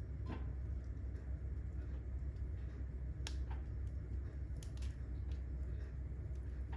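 Wood fire burning in a fireplace, crackling with sparse, irregular sharp pops over a steady low hum.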